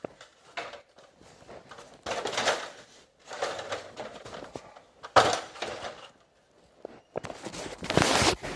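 Scuffing and rustling of someone moving about and handling things, with one sharp knock about five seconds in.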